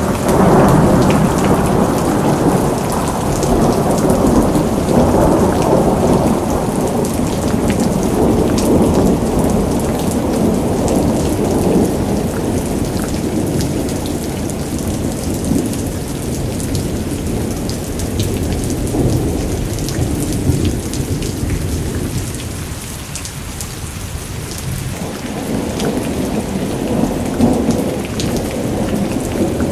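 Thunderstorm: steady rain with long, rolling rumbles of thunder that swell and fade, easing for a few seconds about two-thirds of the way through before building again near the end.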